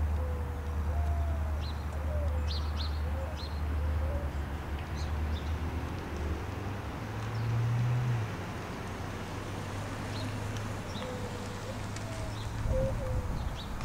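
Outdoor birdsong: a dove cooing in short wavering low notes, several in the first few seconds and again near the end, with scattered short high chirps from small birds. A steady low rumble runs underneath.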